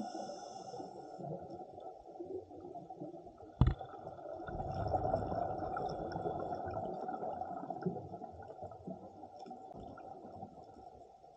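Muffled underwater rumble and gurgling water noise, with a single sharp click about three and a half seconds in.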